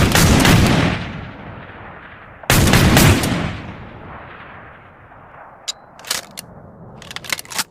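Two gunshots from an 1858 cap-and-ball revolver, about two and a half seconds apart, each trailing off in a long echo. Several short, sharp clicks follow near the end.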